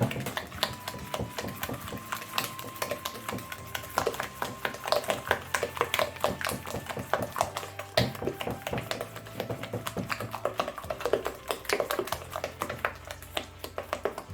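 A hand utensil beating eggs and sugar in a mixing bowl, a fast, uneven run of clicking taps against the bowl.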